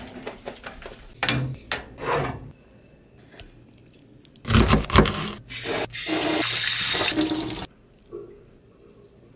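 Wooden spatula scraping and clicking in a frying pan, then cream-sauced fried chicken sliding out of the pan onto a plate in a wet, noisy run, loudest about halfway through.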